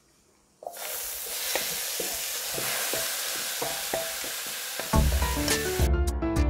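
Squid and vegetables sizzling in a frying pan as they are stir-fried, with a wooden spatula knocking and scraping against the pan; the sizzle starts about half a second in. About five seconds in, background music with a bass line and plucked notes comes in.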